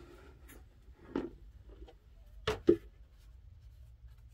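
Small tea glasses and dishes being handled in a plastic basin: a few short knocks, one about a second in and two close together about two and a half seconds in, the second of them the loudest.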